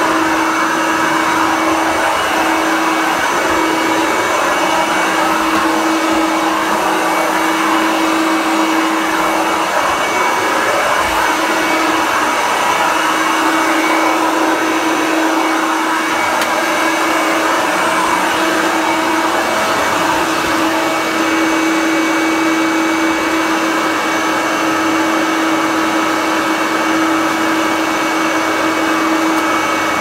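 Hoover Turbomaster upright vacuum cleaner running steadily with a constant motor whine over a rushing air noise as it is pushed across the floor.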